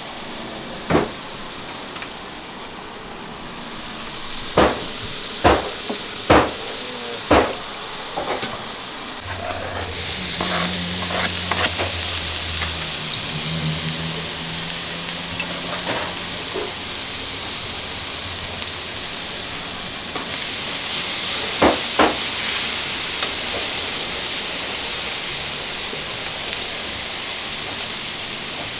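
Metal tongs clink sharply against a steel colander and pot several times, then a sizzle starts suddenly about ten seconds in as sliced onion, tomato and sweet pepper fry in hot oil in a black pan under a wooden spoon. The sizzle grows louder about twenty seconds in, with a couple more clinks just before.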